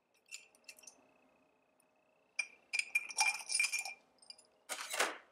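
Small metal Gurtner carburetor parts clinking against the inside of a ceramic mug as they are fished out of a WD-40 soak, with a few light ticks and then clusters of ringing clinks. A short hiss of compressed air comes just before the end.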